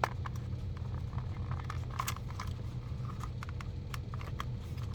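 Small plastic clicks and taps as an HO-scale GG-1 locomotive shell is pressed and wiggled onto its chassis without seating, the loudest tap about two seconds in, over a steady low hum.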